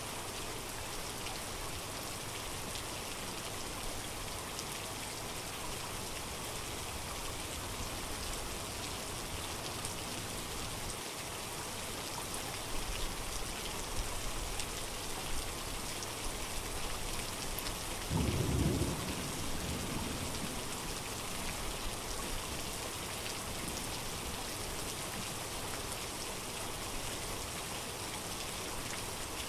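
Steady rain falling. A brief low rumble of thunder comes about two-thirds of the way through.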